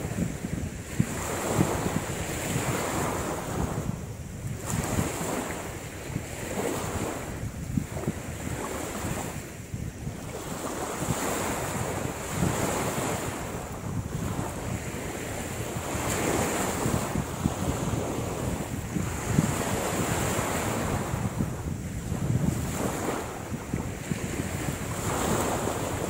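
Wind buffeting the microphone over small waves washing on the shore, the noise swelling and easing every second or two.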